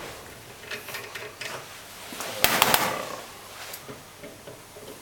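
Metal clicks and rattles of a steel injector clamping device being adjusted by hand, with a quick run of several sharp clicks about two and a half seconds in.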